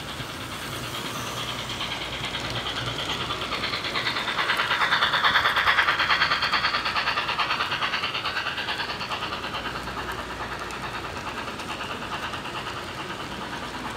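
Model train running past on its track: rapid, even clicking of wheels over the rail joints and the whine of the locomotive's motor and gears. It grows louder to a peak about five seconds in as the locomotive passes close, then fades as the cars follow.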